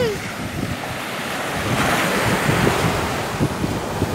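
Ocean surf washing up a sandy beach, swelling about halfway through, with wind rumbling on the microphone.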